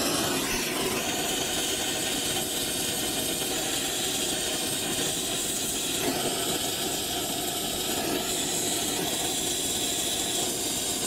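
Steady hissing of an oxy-fuel brazing torch flame, heating the brazed copper joints of a heat pump reversing valve to unbraze and pull off the old valve.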